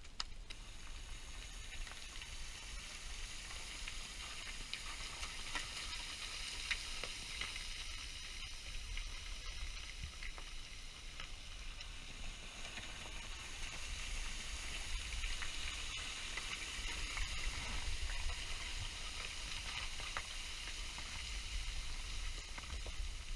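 Steady hiss with a low wind rumble on the microphone, and scattered small clicks of loose stones shifting underfoot on scree.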